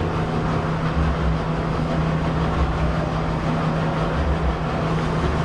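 Steady mechanical drone: a constant low hum under an even wash of noise.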